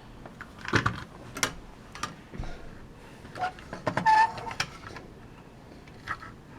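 Hard plastic clicks and knocks from a battery-operated toy truck and trailer, the coupling snapping as the automatic hitch catches and locks. A cluster of clicks with a brief squeak comes about four seconds in.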